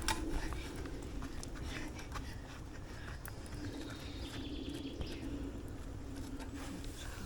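Wood campfire crackling, with scattered small pops and snaps over a faint steady hiss.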